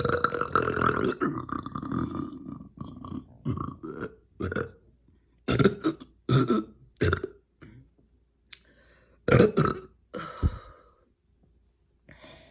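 A woman's long burp lasting about three seconds, followed by a string of shorter burps. The gas comes up from carbonated sparkling water.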